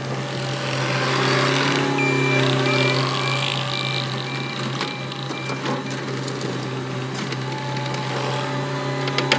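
Cat 259D compact track loader's diesel engine running, swelling under load about a second in, with its backup alarm beeping in an even series for several seconds. A few sharp knocks come near the end.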